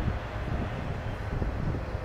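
Freight train cars rolling past with a steady low rumble, and wind gusting on the microphone.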